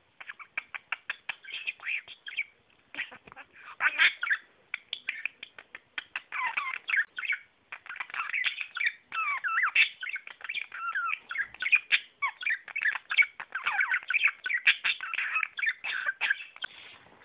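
Budgerigar chattering and warbling: rapid clicks mixed with wavering, squeaky chirps, in phrases broken by a couple of short pauses.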